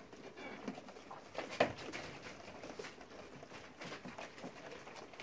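Goats moving about in a crowded pen, hooves shuffling and knocking on the floor, with a sharper knock about one and a half seconds in.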